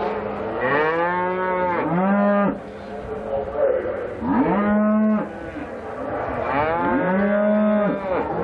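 Cattle mooing: three long, drawn-out bawls, one after another, with calls from more than one animal overlapping.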